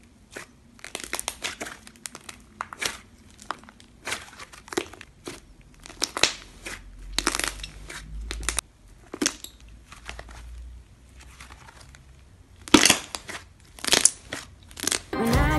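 Slime being squeezed and kneaded by hand, giving irregular sticky clicks and crackling pops.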